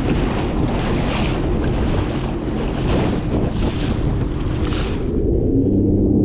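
Sea-Doo RXT-X 300 personal watercraft with its supercharged three-cylinder engine running under way, under a loud rush of wind on the microphone and water that surges about once a second. About five seconds in the rush cuts off suddenly, leaving the engine's steady hum.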